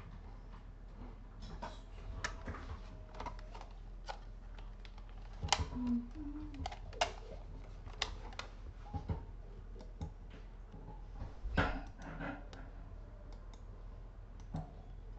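Scattered clicks and taps of a computer mouse and keyboard, a few sharper knocks among them, over a low steady hum.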